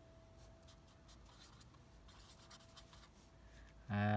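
Felt-tip marker pen scratching on paper in quick short strokes as words are written by hand, over a faint steady hum. A man's voice starts near the end.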